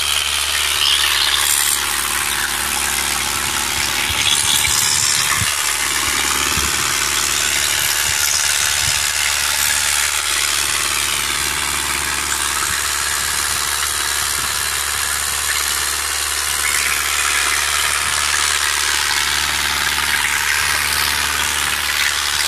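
Sonalika DI 750 tractor's diesel engine running steadily at idle, with no revving.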